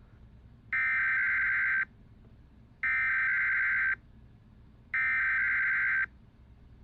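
Emergency Alert System SAME header: three identical bursts of buzzing digital data tones, each about a second long, with about a second's gap between them. They open an automated required weekly test of the alert system.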